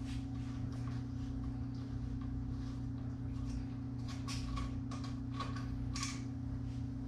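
A few faint, light clicks of a small tool and loose hardware as the bolts holding a motorcycle's tank dash are worked out, over a steady low hum.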